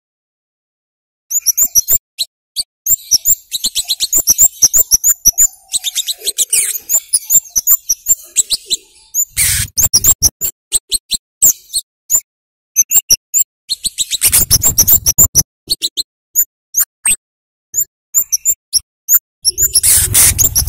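Scarlet-headed flowerpecker (kemade) calling in fast runs of short, sharp, high 'cit' chips. The runs are dense for several seconds and then thin out and break up. Three bursts of rushing noise cut in: about halfway, a little after two-thirds, and near the end.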